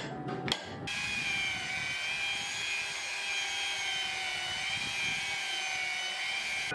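A single hammer blow on a punch held against hot steel about half a second in. Then a Ryobi electric belt sander runs steadily on a wooden board, a steady motor whine whose pitch wavers slightly under load.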